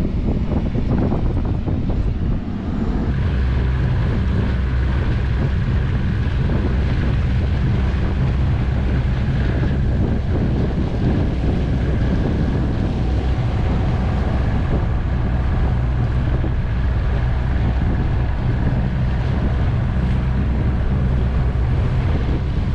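Outboard motor running at a steady cruising speed as the boat travels, with wind buffeting the microphone.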